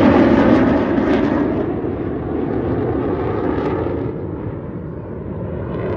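Jet engines of a formation of jet aircraft flying past in a display, a loud rumbling noise that is loudest at first and fades away over about five seconds, swelling again near the end.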